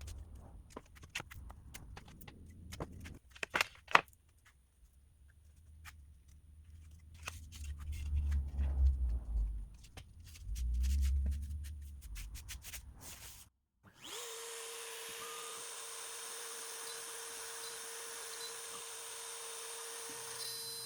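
Scattered clicks and knocks with low rumbling handling noise, then about two-thirds of the way in the Longmill MK2 CNC's router spindle spins up and runs on steadily with an even whine.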